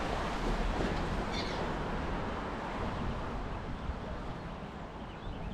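Steady rushing noise of river water and wind on the microphone, with one short bird chirp about a second and a half in.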